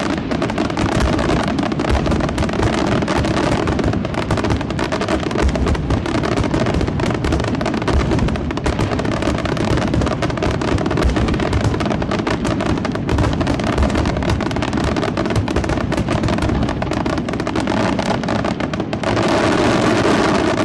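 A fireworks display in a dense, continuous barrage: rapid overlapping bangs of aerial shells and crackle with no gaps, packing tighter and louder near the end, typical of a finale.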